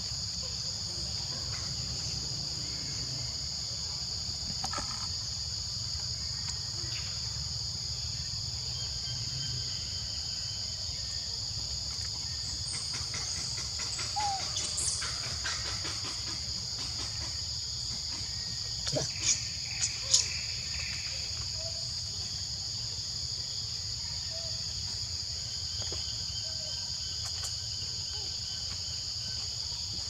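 Steady, high-pitched chorus of insects, held on two even tones, over a low steady rumble. A few short clicks stand out about two-thirds of the way through.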